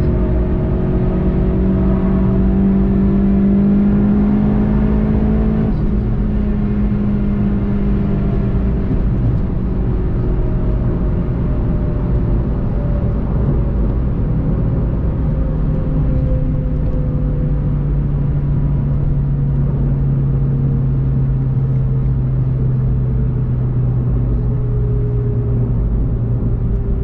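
Onboard sound of a VW Golf 7.5 GTI TCR's turbocharged 2.0-litre four-cylinder engine running at speed under road and wind noise. The engine note climbs slightly for the first few seconds, then drops and falls steadily as the car slows down.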